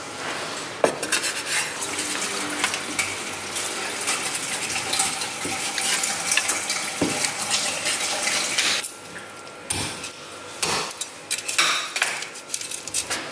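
Kitchen knife cutting a raw whole chicken apart at the joints on a wooden chopping board: steady scraping and cutting noise, with a few sharp knocks of the blade against the board.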